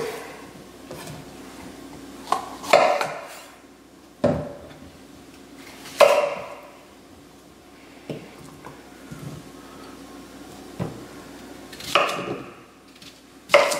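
Chef's knife cutting a pumpkin into pieces on a wooden cutting board: the blade chops through the rind and knocks on the board, about seven times at uneven gaps of one to two seconds.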